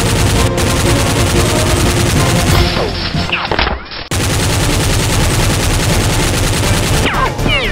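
Automatic gunfire sound effect, a dense rapid string of shots dubbed over Nerf blasters being fired, with a brief break about four seconds in before it resumes.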